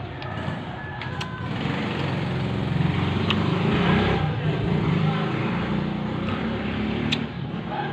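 A motor engine running nearby, getting louder over the first few seconds and then holding steady, with a few sharp clicks over it.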